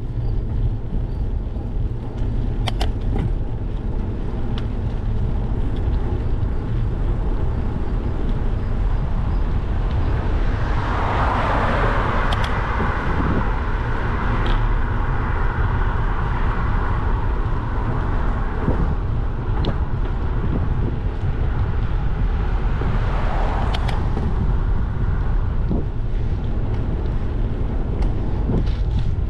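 Steady wind rumble on a GoPro microphone riding a bicycle along a road, with a car passing in the opposite lane, its rush swelling in the middle and fading away. A few sharp clicks are scattered through it.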